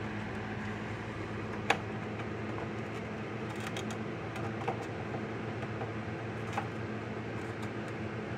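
Pliers and a soldering iron clicking and tapping against a circuit board: one sharp click just before two seconds in and a few lighter taps later, over a steady low hum.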